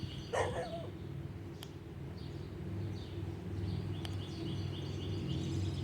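Birds chirping in short, evenly spaced series outdoors, with one brief falling call about half a second in, over a steady low background hum.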